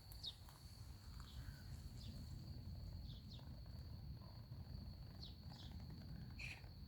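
A steady high-pitched insect trill, with short falling bird chirps every second or so over a low rumble.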